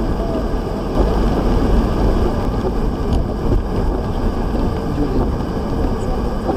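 Inside a moving car, the engine and tyres make a steady rumble on a wet road.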